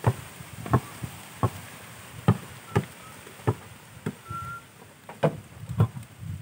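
A basketball being dribbled on a dirt court, thudding on the ground about every three-quarters of a second. A brief high tone sounds once near the middle.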